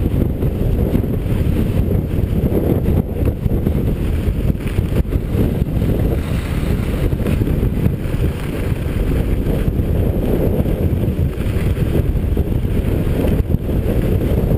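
Wind rushing over the camera's microphone while skiing downhill at speed, a steady low rumble, with a fainter hiss of the skis sliding over packed snow.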